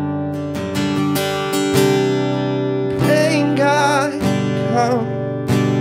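Acoustic guitar strummed in a steady rhythm. About three seconds in, a man's voice comes in singing a wavering line for about two seconds.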